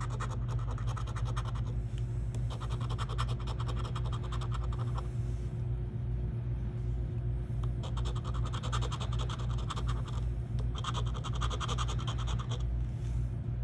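A handheld scratcher tool scraping the coating off a lottery scratch-off ticket in several bursts of quick strokes, with short pauses between, over a steady low hum.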